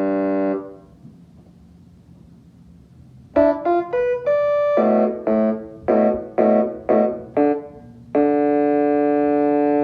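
Piano keyboard playing an imitation of the Chicago Blackhawks' goal horn and goal song. A held chord dies away, and after a pause comes a fast run of notes, then a string of about six short repeated chords and a long held chord near the end.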